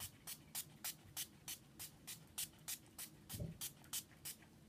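Pump-mist makeup setting spray being spritzed at the face over and over, a quick train of short hisses about four a second.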